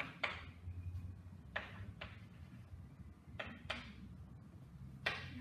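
Chalk writing on a blackboard: about six short scratchy strokes and taps, irregularly spaced, over a low steady room hum.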